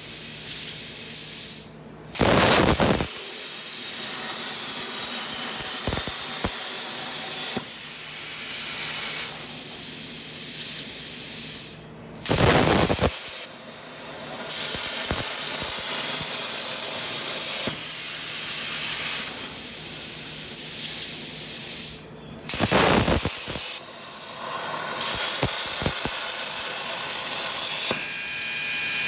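Hypertherm Powermax 125 plasma torch on a CNC table cutting metal: a loud, steady hiss of arc and air. It stops three times, about ten seconds apart, and each time a brief, louder burst follows as the torch starts again.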